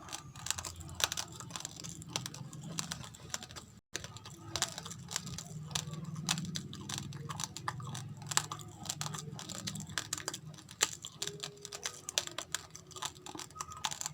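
Close-up chewing of raw, uncooked rice grains: a dense, irregular run of small, sharp crunches as the hard grains crack between the teeth.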